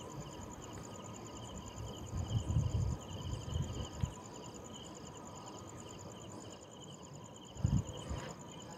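Fairground crowd din under a steady, rhythmic high chirping that repeats about twice a second, with low bumps about a third of the way in and a short low thump near the end.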